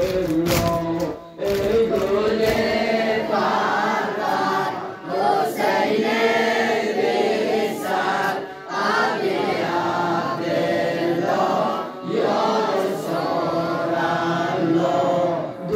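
Men chanting a Shia Muharram mourning nauha together, punctuated by the sharp slaps of hands beating on chests (sineh-zani).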